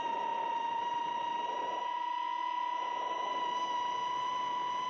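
FPV freestyle quadcopter's brushless motors (iFlight Xing 2206 2750kv on Ethix S3 props) whining at a steady pitch, heard on the onboard camera, with a rush of air that swells and fades every couple of seconds.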